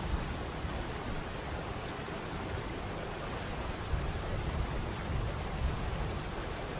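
Waterfall's rushing water, a steady wash of noise with an uneven low rumble underneath.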